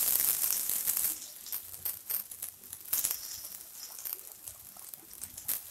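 Vegetable cutlets frying in hot oil in a kadhai: a loud sizzle as they go in that eases over the first couple of seconds into a quieter sizzle with scattered crackles and pops.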